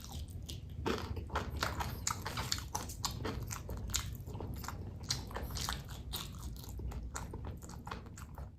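Close-miked crunching and chewing of crispy chips and fresh cabai gendot chili peppers, with irregular crisp crunches several times a second.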